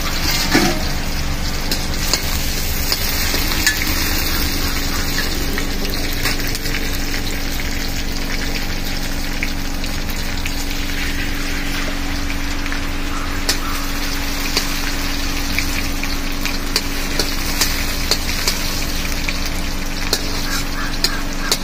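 Oil sizzling in an iron kadhai over a wood fire as food fries, with a metal slotted spoon scraping and tapping the pan now and then.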